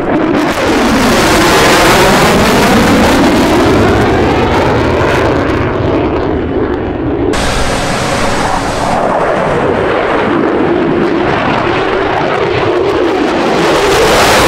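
Fighter jet engines running loud in a dense, steady rush during a display pass, with a pitch that sweeps down and back up as the jet moves. About seven seconds in, the sound changes abruptly to another jet pass.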